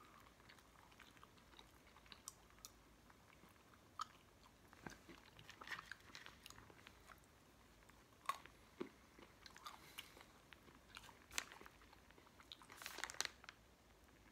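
Faint chewing and crunching of a mouthful of MRE nut and raisin mix (hard raisins, peanuts, almonds), as scattered crunches about every second or so, busiest near the end.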